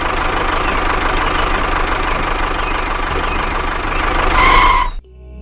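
Small engine of a miniature model tractor running with a dense, rapid knocking rattle. It gets louder shortly before the end, then cuts off abruptly.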